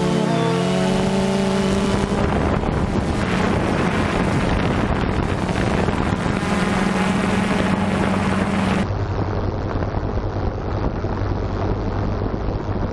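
Camera drone's propellers humming steadily with wind rushing over the microphone. The pitch slides briefly about a second in, and about nine seconds in the hum suddenly drops lower and the sound turns duller.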